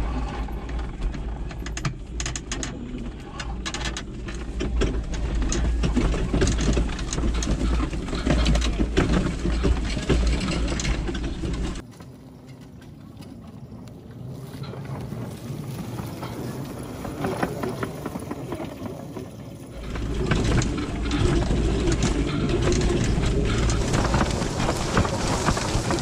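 Children's ride-on car driving over a rutted dirt track and grass, its body rattling and jolting over the bumps, with wind rumbling on the microphone. The noise drops sharply for several seconds about halfway through, then comes back just as loud.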